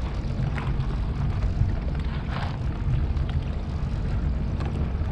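Boat engine idling: a steady low rumble.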